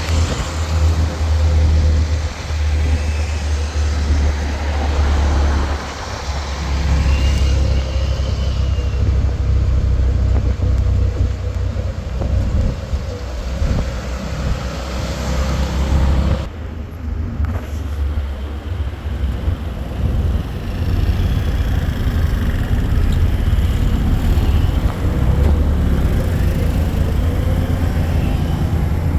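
A road vehicle on the move: a continuous heavy low rumble of engine and road noise, easing briefly about sixteen seconds in.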